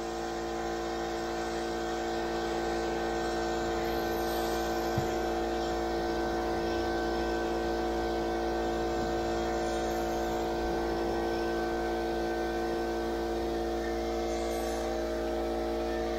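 A steady machine hum made of several even tones that hold their pitch, with a single soft knock about five seconds in.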